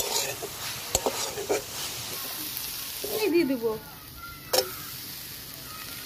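Metal spatula scraping and stirring grated coconut and sugar in an aluminium pan, with a light sizzle as the coconut filling cooks. About three seconds in, a brief falling pitched call sounds, and a single sharp knock follows a second later.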